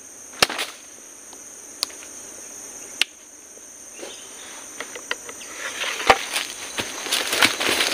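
Steady high-pitched chorus of forest insects, broken by a few sharp clicks and snaps. From a little past halfway, rustling and crackling grows louder toward the end.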